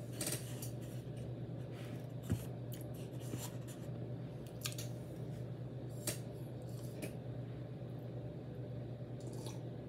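Eating sounds: fingers breaking off pieces of a concha's crumbly sugar topping, and chewing. These come as scattered small crackles and clicks, with one sharper tap about two seconds in, over a steady low hum.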